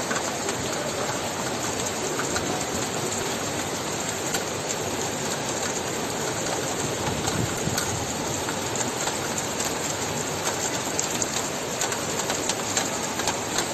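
Steady rushing noise of heavy rain and fast-flowing floodwater, with a few faint scattered ticks.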